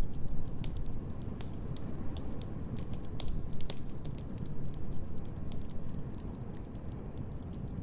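Wood fire crackling in a fireplace: irregular sharp pops and snaps over a steady low rumble, which is a little louder for the first half second.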